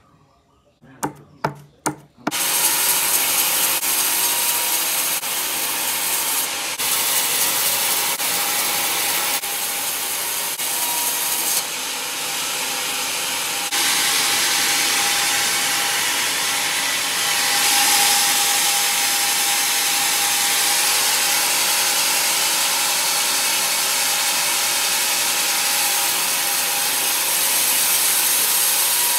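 A few sharp knocks, then from about two seconds in a bandsaw mill's blade cutting steadily lengthwise through a rotten teak log: a loud, even hiss of sawing with a steady whine underneath.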